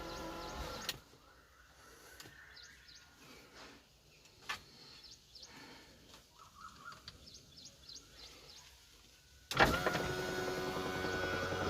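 Power window motor in an Ashok Leyland Dost running and stopping about a second in; after a quiet stretch with a few faint clicks, it starts again abruptly and louder near the end.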